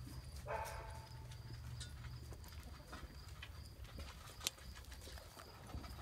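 Footsteps crunching on dry straw and leaves, with scattered clicks, over a steady low rumble. A short animal call comes about half a second in, and one sharp click a little after four seconds is the loudest sound.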